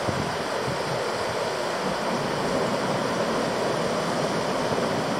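Steady rushing of a shallow river flowing over rocks and stones.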